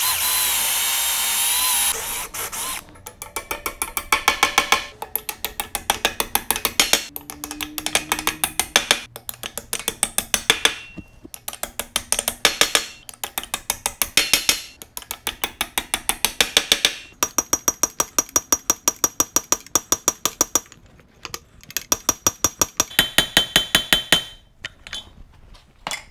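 Ball-peen hammer rapidly tapping on steel, peening over the quarter-inch round-head rivets at a wagon-wheel hub flange, in quick runs of a second or two with short pauses and some metallic ringing. It opens with about two seconds of a steady machine whir.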